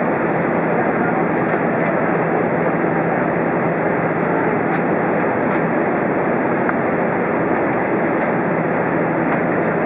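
Steady cabin noise inside an Airbus A320 airliner during descent: an even rush of airflow and jet-engine noise with a faint low hum.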